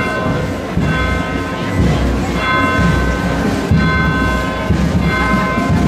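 A ringing tone of several pitches held together, sounding for under a second and repeating roughly every second and a bit, over the murmur of a street crowd.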